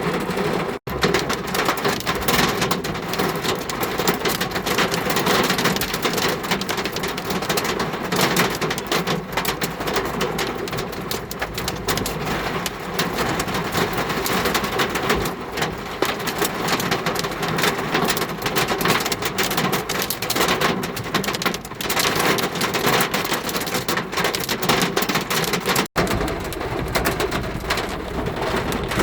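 Rain and hail pelting a car's body, a dense, continuous patter of impacts. The sound drops out for an instant twice, about a second in and near the end.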